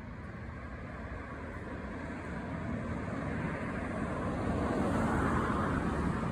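A vehicle passing, its rushing noise slowly growing louder to a peak about five seconds in and then easing slightly.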